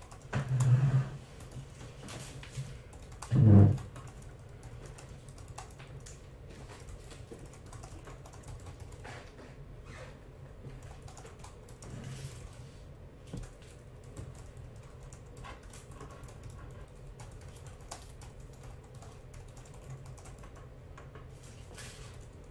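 Scattered light clicks of typing on a laptop keyboard. Two dull thumps come in the first four seconds, and a softer knock about twelve seconds in, as cardboard card boxes are set down on the table.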